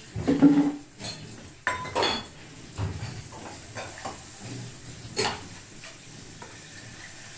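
Steel utensils clanking and scraping in a steel kadhai as washed rice is tipped from a steel plate into hot tempering and stirred with a metal spatula, over a faint sizzle of frying. A few separate clanks, the sharpest about five seconds in.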